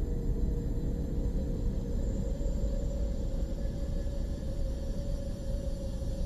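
Steady low rumbling drone with a faint held tone above it, which shifts slightly about two seconds in.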